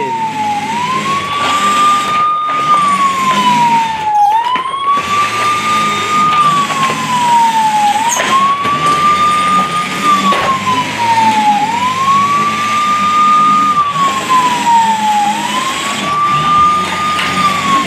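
Toy RC police SUV's electronic siren wailing: one tone that climbs, holds, then slides down, repeating about every four seconds, over a low hum.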